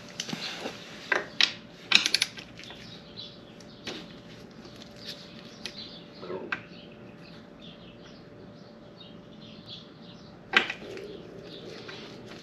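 A few sharp metallic clicks and clinks of a socket wrench working a dirt bike's oil drain plug, a cluster of them about one to two seconds in and a single loud one near the end, with faint bird chirps in the background.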